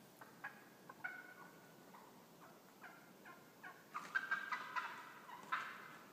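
Wild turkeys calling from the roost: scattered short calls, then a louder, rapid run of calls about four seconds in, a gobble.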